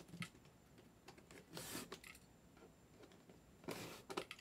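Near silence with two faint, brief rustling or scraping noises, one about one and a half seconds in and one near the end.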